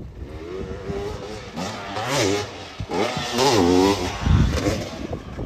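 Dirt bike engine revving up and down as it is ridden, its pitch rising and falling in two strong bursts in the middle. There is a heavy low thump about four seconds in.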